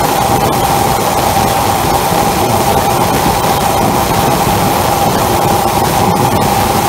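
Propane forge burner with a Hyper Force annular air-jet nozzle firing full on: a loud, steady rushing roar of gas and forced air burning, with a steady mid-pitched whistle running through it.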